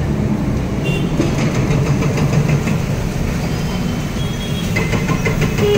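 Steady low engine and road rumble of slow traffic, heard from inside a car's cabin on a flooded street, with a few short high-pitched tones cutting in about a second in and near the end.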